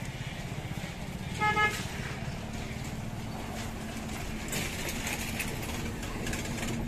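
A vehicle horn gives one short toot about a second and a half in, over a steady low rumble of street traffic. In the second half comes a rough, irregular rubbing and rustling noise.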